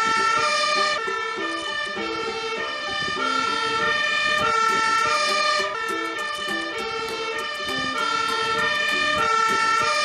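Fire engine's two-tone siren sounding continuously, switching back and forth between a higher and a lower note.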